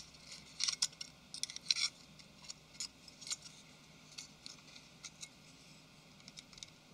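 Small, irregular metal clicks and scrapes of a flat-blade screwdriver tip prying the clipped-on metal shield off a Nexus 5 mainboard, most of them in the first two seconds and sparser after.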